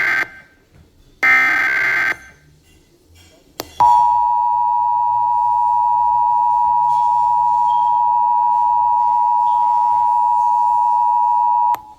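Emergency Alert System test tones. Two short buzzy bursts of SAME header data end in the first couple of seconds. Then the EAS two-tone attention signal sounds as one loud, steady dual tone for about eight seconds and cuts off abruptly just before the end.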